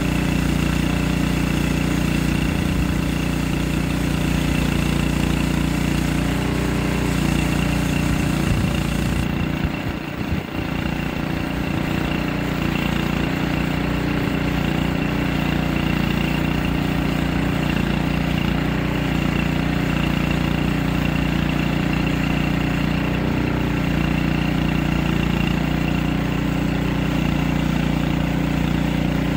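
Portable bandsaw sawmill's small gasoline engine running steadily while the band blade cuts along a log, with a brief dip in level about ten seconds in.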